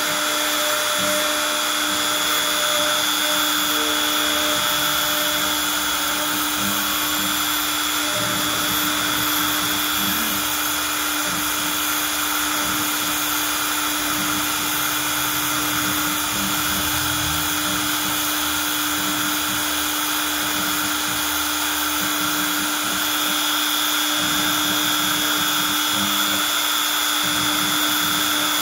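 CNC router spindle running steadily with a constant high whine as its bit carves a star shape into a wooden board.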